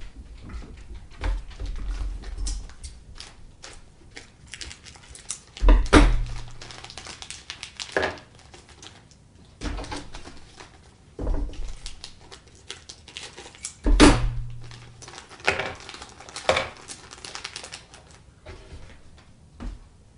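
Small tools and parts being handled and set down on a workbench: irregular clicks, taps and clatter, with two louder thumps about six and fourteen seconds in.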